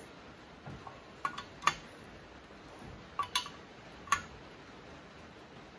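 Sharp metallic clicks and clinks, a few at a time and irregularly spaced, from a homemade cylinder-liner puller being tightened on its threaded rod as it draws a wet liner out of a Case 188D diesel engine block.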